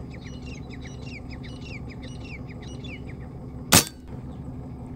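Small birds chirping in a quick series of short falling calls over a steady low hum. Then, near the end, a single sharp crack: a shot from a PCP air rifle.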